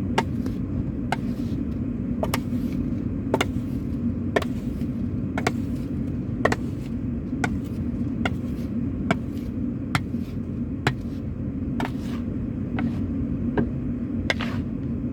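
Steady low rumble of an idling car, with a sharp click about once a second.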